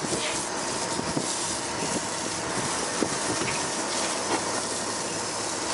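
Steady rushing noise on a sport-fishing boat's open deck, from wind, sea and the boat's engine, with a few faint clicks.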